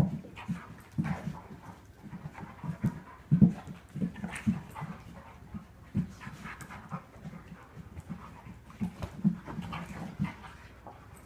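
Dog breathing heavily in quick, irregular pants, with a few sharper, louder breaths among them.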